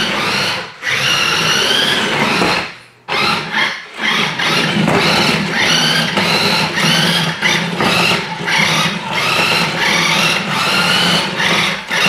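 Electric drive motor of a battery-powered 1:10-scale Lamborghini Murcielago RC car whining as the car drives, its pitch rising and falling as it speeds up and slows. It drops out briefly a few times, longest about three seconds in.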